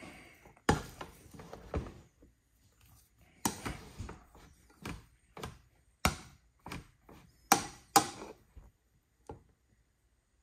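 About ten irregular knocks and clatters of tableware being handled, as dishes and a serving spoon are moved around a meal of rice and green-bean curry.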